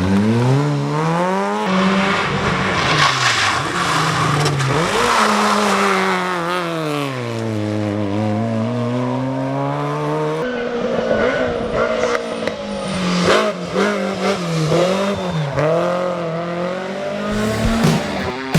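Rally car engines revving hard, the pitch climbing and dropping again and again through gear changes and braking. About ten seconds in, a cut brings another car with quicker, choppier rev changes.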